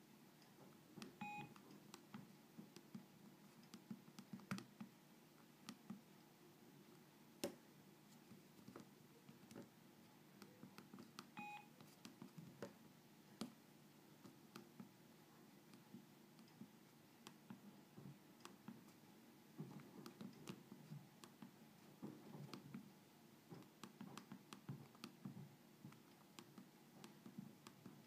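Keypad buttons of a Samsung SGH-B270/C270 flip phone being pressed over and over, each a faint click, with two short electronic beeps from the phone about ten seconds apart.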